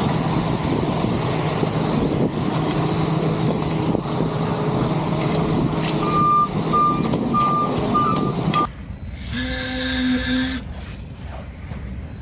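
Ready-mix concrete truck's diesel engine running with a steady drone, its reversing alarm beeping about twice a second for the last few seconds before the sound cuts off abruptly, followed by a brief held tone.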